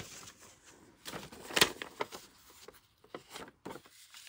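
Loose sheets of paper rustling and shuffling as they are handled and layered into a stack, with a sharper paper snap about a second and a half in.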